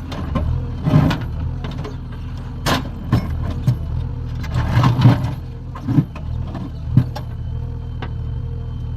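JCB 3DX backhoe loader's diesel engine running steadily under work, with sharp metallic clanks and knocks from the bucket and digging gear about every second, loudest around the middle.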